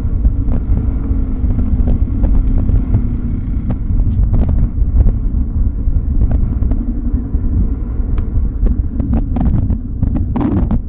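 Wind buffeting the microphone: a heavy, uneven low rumble with scattered small clicks, and a faint steady hum fading out in the first few seconds.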